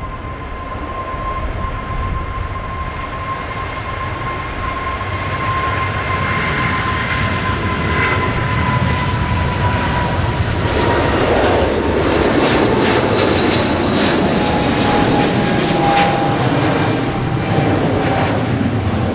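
Japan Airlines Boeing 777's twin turbofan engines at takeoff thrust: a steady whine that slowly drops in pitch as the jet rolls past, then, about ten seconds in, a louder crackling roar as it lifts off and climbs away.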